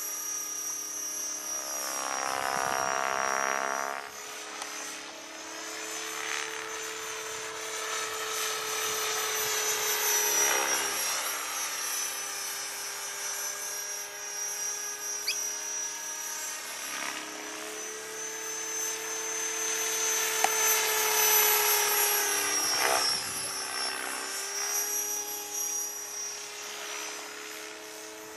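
Align T-Rex 600 radio-controlled helicopter flying overhead: a steady whine from its rotors and motor that sweeps in pitch and swells and fades several times as it passes and turns, loudest about ten seconds in and again about twenty seconds in.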